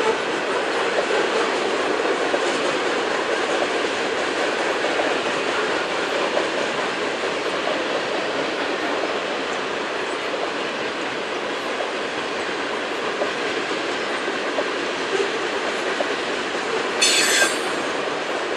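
Covered hopper cars of a freight grain train rolling past, a steady rush of steel wheels running on the rails. Near the end a wheel gives one brief high-pitched squeal.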